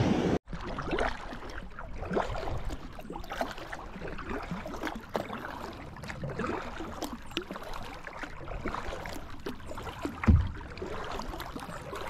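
Creek water lapping and trickling around a kayak sitting on the water, with scattered light knocks and one dull low thump about ten seconds in.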